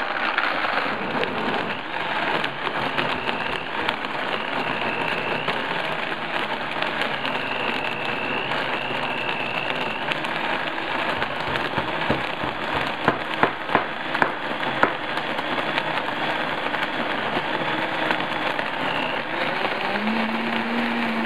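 Vitamix blender motor running at speed, churning a liquid mix of raw eggs, broth and whole supplement capsules, with a faint whine that comes and goes. A few sharp ticks sound about two-thirds of the way through.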